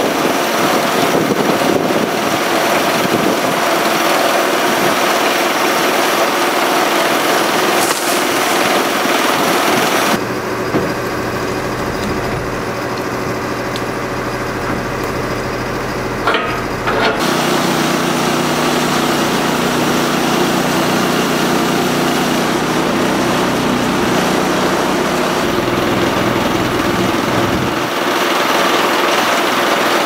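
Small gasoline engine of a bandsaw sawmill running steadily, not cutting. About a third of the way through it drops to a quieter, deeper note for several seconds, then comes back up.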